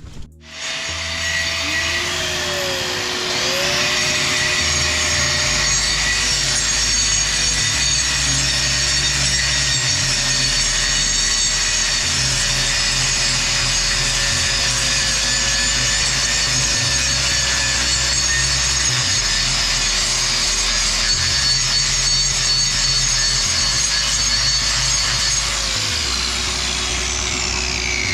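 Power grinder grinding down a concrete floor around the toilet plumbing to make it smooth and flat: a loud, steady grinding with a motor whine. It starts about half a second in, and the motor's pitch dips briefly around three seconds in.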